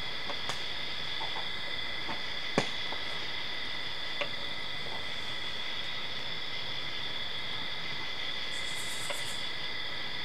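Steady night chorus of crickets and other insects, several high shrill tones held without a break. A few sharp clicks and pops cut through, the loudest about two and a half seconds in, and a brief rapid pulsing trill comes near the end.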